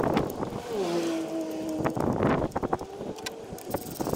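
Quarter-inch ratchet clicking as it drives the 10 mm hold-down bolt of an ignition coil, with a brief steady hum that falls slightly about a second in.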